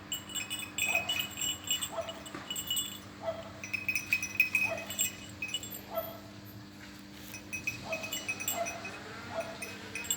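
A dog yelping in short, falling cries about once a second, excited during a chase after a rabbit, with high metallic jingling over it.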